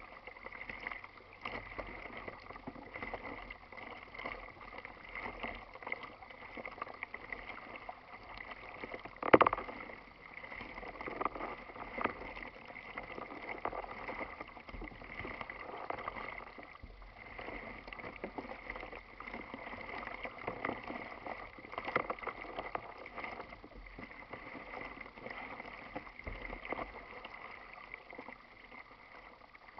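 Water lapping and splashing against a plastic kayak's hull as it moves across choppy water, with one sharp knock about nine seconds in.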